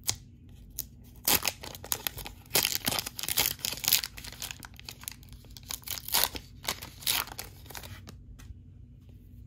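Black foil wrapper of a Mosaic basketball card pack being torn open and crinkled by hand, a run of sharp crackles from about a second in until near the end, loudest around three to four seconds in.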